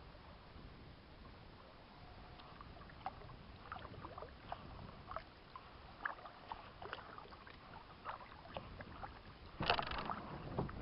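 Kayak paddling: faint drips and small splashes of water from the paddle, with a louder splash near the end.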